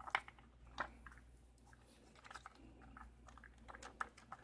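Faint, scattered small clicks and light taps of a Schlage key-in-knob lock and metal picking tools being handled, with a couple of sharper clicks near the start and about a second in.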